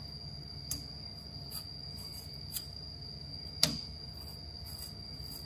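Kitchen cleaver slicing a tomato held in the hand over a wooden cutting board: a few light clicks about a second apart, and one sharper knock about three and a half seconds in.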